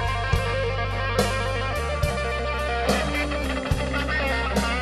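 Instrumental break of a rock ballad: an electric guitar plays a melodic lead line over a steady bass line and a drum beat at an even, slow pace, with no singing.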